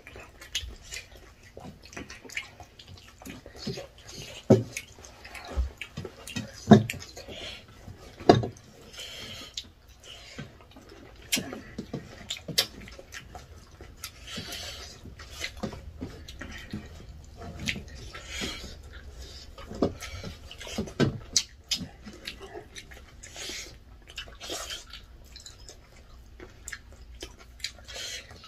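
Two people eating spicy chicken drumsticks and rice by hand, close to the microphone. Chewing and wet mouth sounds come with irregular sharp clicks and smacks, a few of them louder in the first third, as fingers mix rice on steel plates and teeth work meat off the bone.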